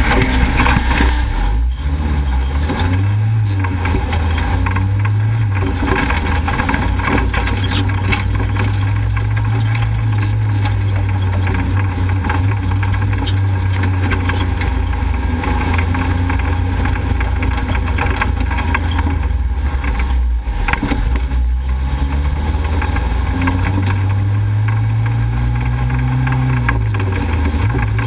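Off-road race vehicle's engine running hard, its pitch climbing and falling a few times as it accelerates and eases off. Many short knocks and rattles come through as it is driven over the rough dirt trail.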